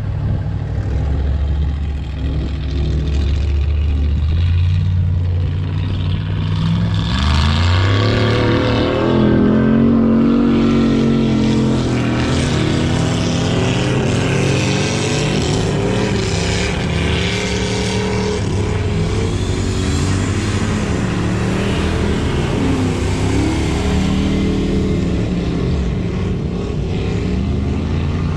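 Off-road vehicle engine at hard throttle, as at a mud bog run. It holds a low, steady note, then revs up sharply about seven seconds in and stays at high revs, the pitch wavering up and down.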